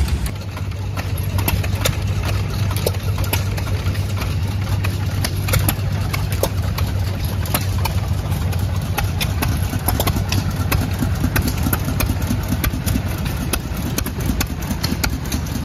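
Antique hit-or-miss stationary gas engines running, a steady low hum with many irregular sharp ticks and knocks.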